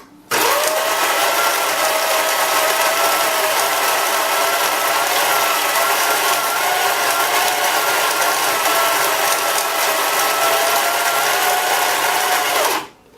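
Lelit PL53 coffee grinder running as it grinds beans into the portafilter: a steady motor whine over grinding noise, starting just after the beginning and stopping abruptly near the end.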